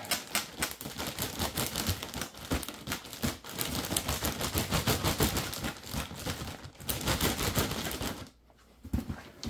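Cardboard box and packing material being handled: dense crinkling and rustling with rapid clicks, pausing briefly about a second before the end.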